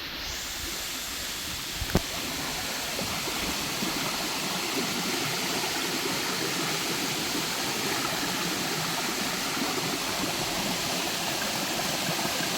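Steady rush of water running over rocks, with one sharp click about two seconds in.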